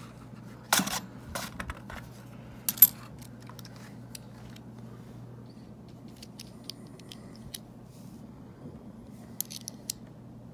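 A stack of clad Kennedy half dollars clinking together as the freshly unwrapped roll is handled and its edges thumbed through. A few sharp clinks in the first three seconds, the loudest near the three-second mark, then softer scattered ticks with a small cluster near the end.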